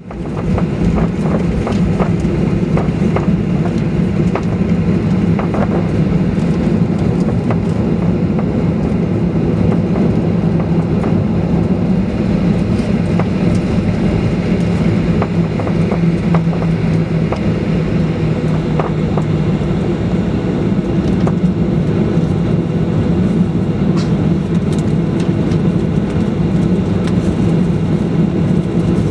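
Boeing 737-800's CFM56 jet engines running with a steady, loud low rumble and hum, with a few faint rattles.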